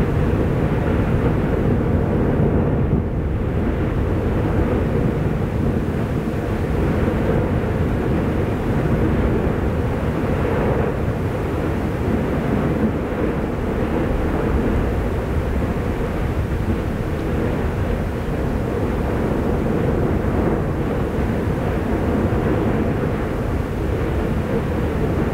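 Steady deep roar of an erupting volcanic vent, lava churning and surging in the crater, unbroken throughout with a dip a few seconds in.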